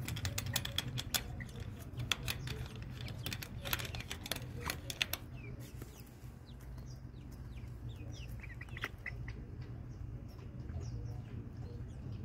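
Chickens at a treat of watermelon rind: a quick run of sharp clicks and taps for about the first five seconds, then short, soft clucks and chirps scattered through the rest.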